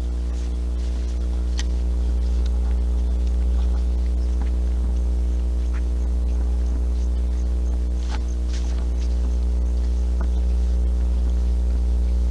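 A steady low hum with several fainter steady tones above it, unchanging throughout, with a few faint clicks and ticks scattered through it.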